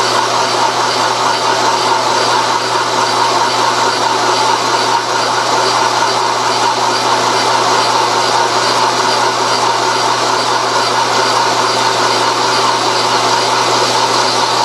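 Milling machine running steadily under power feed as a boring head cuts a hole through a cast aluminum part, with about a quarter inch of the pass left to go.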